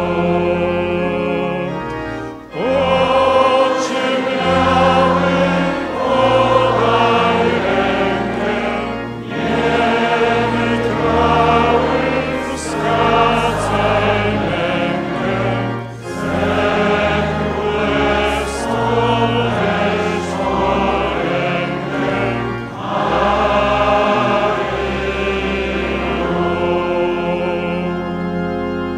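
A choir and congregation singing a Marian hymn in Polish, with organ accompaniment holding long low notes under the voices, phrase by phrase with brief breaks between lines.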